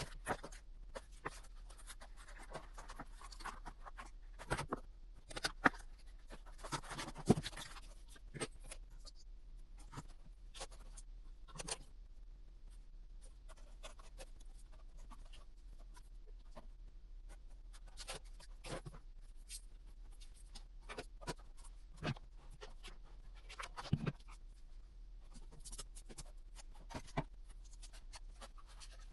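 Cardboard and tools handled at a workbench during a model plane build: scattered scratches, scrapes, taps and clicks, busiest a few seconds in, over a low steady hum.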